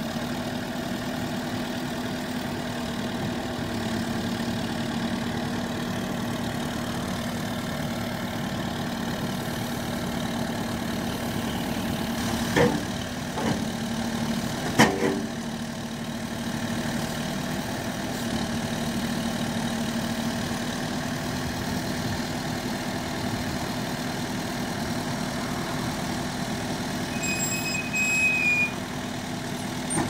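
JCB 214 S Series 2 backhoe loader's four-cylinder turbo Perkins diesel running steadily while the backhoe boom is worked. Two sharp knocks come about 13 and 15 seconds in, and a brief high squeal near the end.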